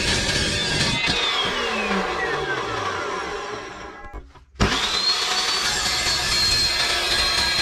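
Evolution metal-cutting chop saw finishing a cut through steel plate. About a second in, the motor is switched off and spins down with a falling whine. After a short near-silent gap the saw starts again, its whine rising quickly and then running steady at full speed.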